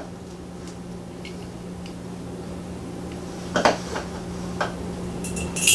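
A few light clicks and taps as a small screw is handled and started into a ceiling fan's light-kit fitter plate, over a low steady hum.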